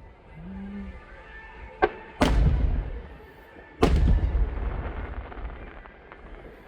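Aerial fireworks shells bursting: a sharp crack, then two heavy booms about a second and a half apart, each trailing off in a long rolling rumble.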